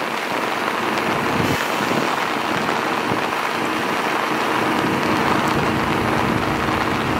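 Diesel locomotive's engine running steadily as it moves slowly toward the listener, under a steady hiss of rain.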